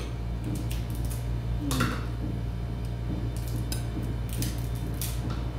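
Tableware clinking and knocking: a scatter of sharp clicks, the loudest about two seconds in, over a steady low hum.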